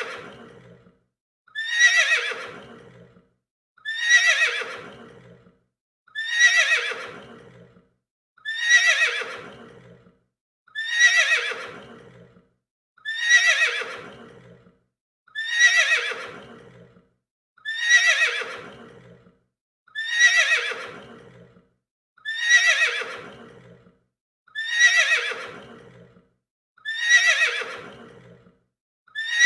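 A horse neighing, the same whinny repeated about every two seconds. Each call starts high and shrill, falls in pitch and fades away, with a short silence before the next.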